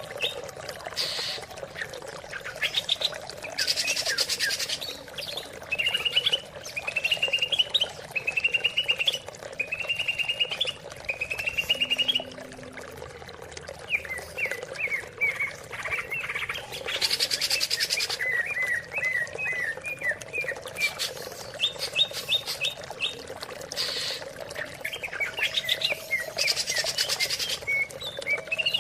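Cucak ijo (green leafbird) singing a varied song of rapid chirp series and rising trills, with three loud harsh rasping phrases.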